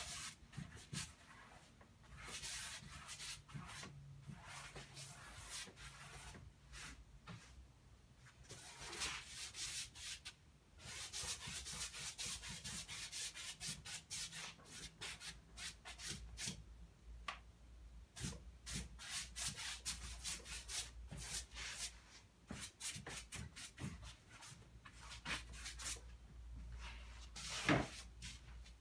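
Wide bristle paintbrush scrubbing oil paint onto unstretched canvas in quick, irregular strokes. A single knock comes near the end.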